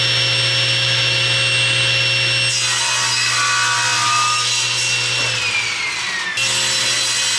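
SawStop table saw running, its blade cutting through a thick ABS plastic block starting about a third of the way in. The blade's whine sinks in pitch as it loads up in the cut. Near the end it jumps back up to free running as the cut finishes.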